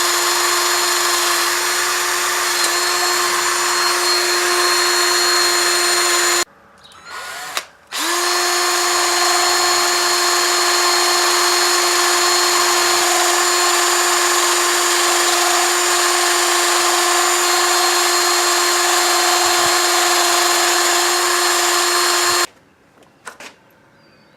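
Electric power tool running at a steady speed with a hissing scrub, used to clean the rust off screws. It stops about six seconds in, blips briefly, starts again about two seconds later, and cuts off a couple of seconds before the end.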